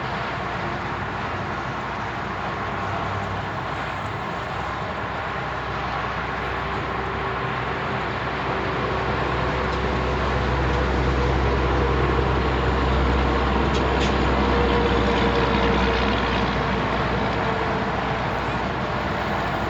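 Road traffic noise with a car's engine rumble that builds about halfway through, holds for several seconds, then eases near the end.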